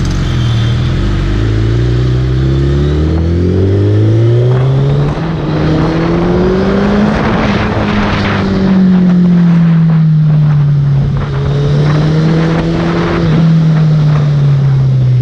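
Suzuki Hayabusa's inline-four engine running under way, its pitch climbing steadily for about seven seconds as the bike accelerates, then easing back and settling.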